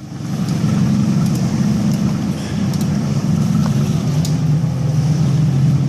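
Watercraft engine running steadily at speed, a low drone that swells up in the first half second and then holds.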